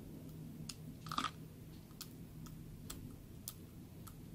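Faint sticky clicks and squelches of a runny, shampoo-based clear slime being stretched and poked with fingers in a plastic cup, a few scattered clicks about every half second, the loudest about a second in.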